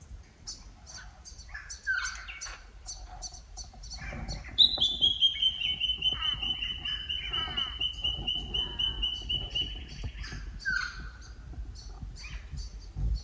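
Several Australian bush birds calling: repeated high chirps and short falling calls, and a loud, fast trill starting about four and a half seconds in that drops slightly in pitch, then holds steady for about five seconds.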